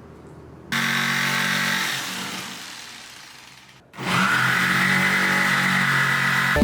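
Handheld electric power tool trimming the bottom of a door to clear the new floor. It starts suddenly about a second in and fades over a few seconds, cuts out, then starts again about four seconds in and runs steadily.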